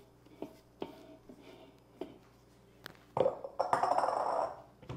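A few light knocks of a wooden cutting board against a stainless-steel mixing bowl, then a louder rustling scrape lasting over a second as sliced onion slides off the board into the bowl.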